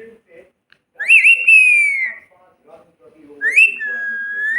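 Pet parrot giving two loud, whistled meow-like calls in imitation of a cat. The first rises sharply and then slides slowly down; the second rises and then holds a steady note.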